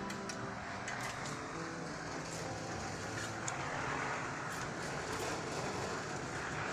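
Steady rushing background noise of road traffic, swelling slightly about four seconds in and again near the end, with a few faint light clicks.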